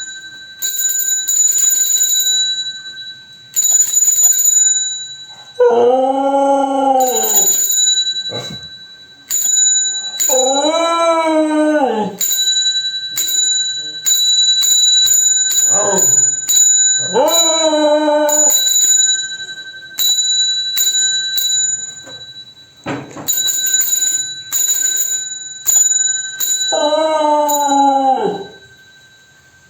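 A bicycle bell rung over and over in quick rings, and a dog howling back at it: four long howls that rise then fall over about two seconds each, and one short one.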